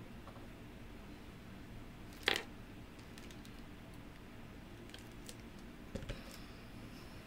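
Quiet handling of a plastic sports-drink bottle while drinking from it: one short, loud noise about two seconds in, then a few faint clicks.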